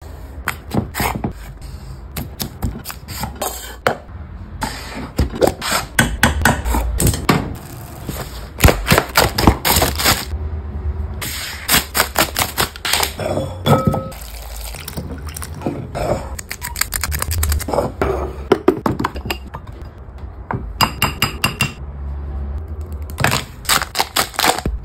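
Close-miked food-prep handling sounds with many sharp taps and crackles: a carton set down on a wooden cutting board, plastic cling film crinkling as it is peeled off a box of strawberries, and a chocolate bar wrapper being torn open near the end.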